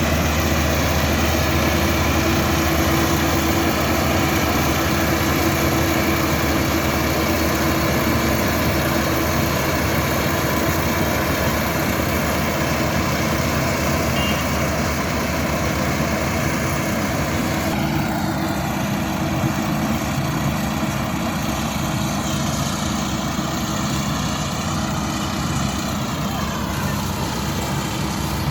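Half-feed combine harvester's engine running steadily. About two-thirds of the way through, the machinery's sound shifts, with a wavering whine higher up.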